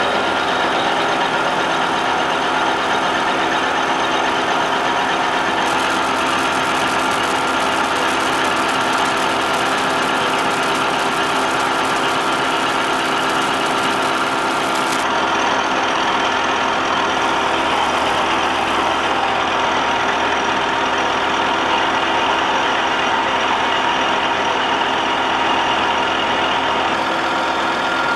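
Vertical milling machine running a shell mill that takes a light skim cut across the top of a rough casting, a steady machine hum with many fixed tones. A brighter, higher noise joins about six seconds in and cuts off sharply about fifteen seconds in.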